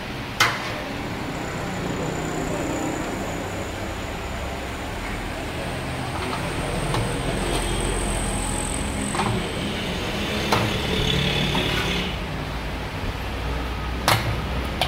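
Steady hum of street traffic, with a few sharp clinks of a steel ladle and spoon against metal serving bowls.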